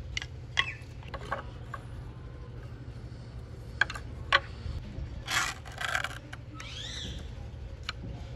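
Wooden spoon templates and a ballpoint pen knocking and scraping against a rough wooden plank as spoon outlines are traced onto it, with scattered light clicks and two short scraping rustles a little past the middle. A brief rising-and-falling chirp sounds near the end.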